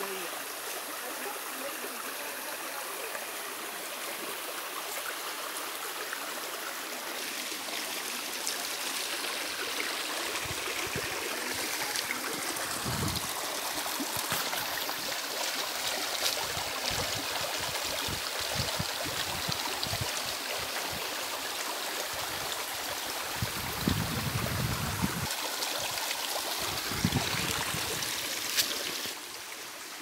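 Shallow forest stream rushing and splashing over rocks in small cascades, a steady even rush that swells somewhat and falls away just before the end. Scattered low thumps come through in the second half.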